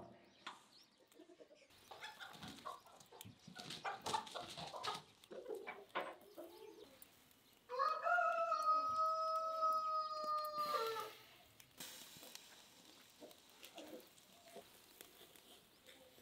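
A rooster crowing once: one long call of about three seconds that rises at the start, holds and drops at the end. Scattered small clicks and knocks come before it.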